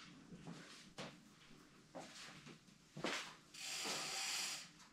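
Quiet garage room tone with a few soft knocks about a second apart, then a brief hiss near the end.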